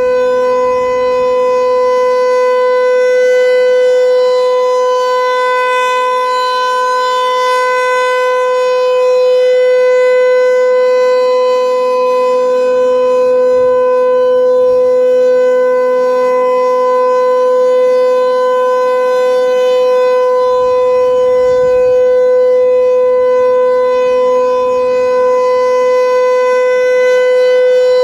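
Federal Signal 508 rotating outdoor warning siren sounding its steady alert signal: one loud, unwavering tone that swells and fades gently as the horn turns.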